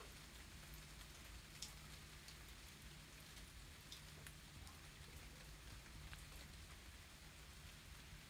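Near silence: faint steady outdoor hiss with a few scattered soft ticks.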